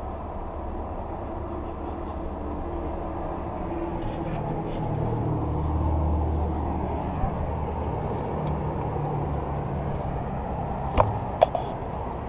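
Diesel locomotive engine idling: a steady low rumble that swells about halfway through. Two sharp knocks near the end.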